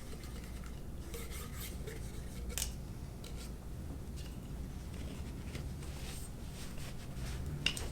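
A long cleaning swab rubbing and scraping inside an AR-15's buffer tube in a series of short, scratchy strokes, with a light click near the end.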